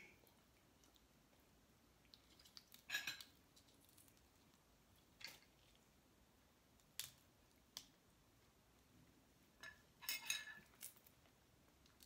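Snow crab legs being cracked and picked apart by hand at the table, heard as scattered sharp clicks and cracks of shell and utensils against near-quiet: a short cluster a few seconds in, a handful of single clicks, and a busier cluster near the end.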